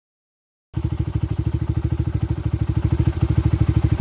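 Honda Ape 100's small single-cylinder four-stroke engine running steadily at low revs, an even exhaust beat of about twelve pulses a second. It cuts in abruptly about a second in.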